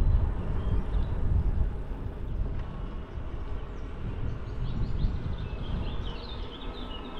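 Gusty low rumble of wind on the microphone while riding an e-bike. A bird chirps repeatedly over the last couple of seconds.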